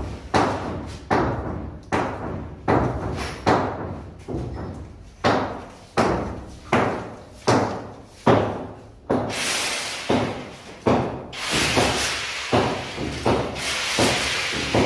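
Repeated heavy blows of a long-handled tool striking a concrete floor, about one or two a second, each ringing briefly in a bare room. From about the middle, a steady rushing noise runs under the blows.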